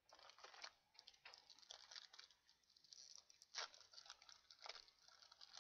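Foil trading-card booster pack wrapper crinkling and tearing as it is pulled open by hand: a quiet run of small crackles with a few sharper snaps.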